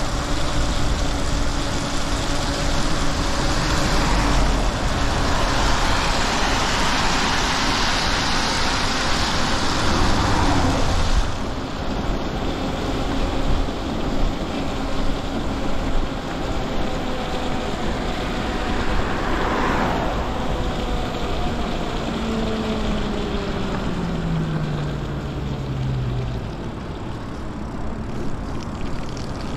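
Riding noise of an electric bike on a wet road: steady rush of wind and tyre hiss, with the electric motor's faint whine beneath it. Near the end the whine falls in pitch as the bike slows.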